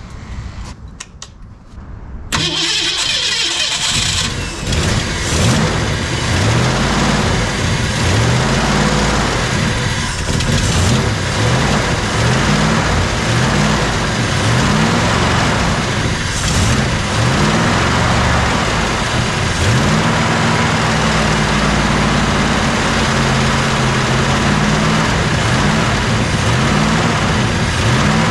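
A 1965 Ford Mustang's V8 fires and catches about two seconds in. It then runs with its speed rising and falling again and again as the throttle is blipped to keep it going. The new carburetor is untuned and gives little to no idle.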